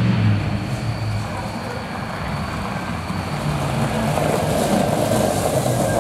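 Old pickup truck's engine running as it drives slowly in, with the crunch of its tyres on gravel growing louder in the second half.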